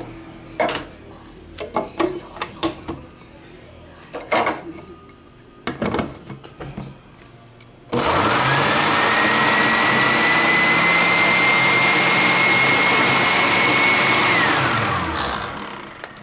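Countertop blender. First come a few knocks and clicks as it is handled. About halfway through, the motor switches on with a rising whine and runs steadily for about six seconds, blending milk and ice cream. Then it is switched off and winds down with a falling whine.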